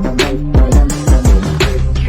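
Background music with a steady electronic hip-hop beat: kick drums, hi-hats and a sustained bass line.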